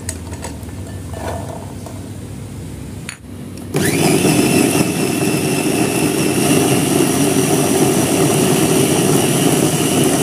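A few light knocks as whole chilies, shallots, garlic and candlenuts drop into the glass bowl, then about four seconds in a Cosmos FP-323 electric food chopper starts with a short rising whine and runs steadily, its blades grinding the ingredients into a spice paste.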